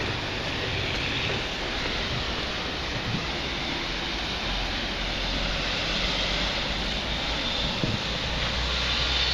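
Steady outdoor street noise of traffic and wind: an even noise with a low rumble underneath.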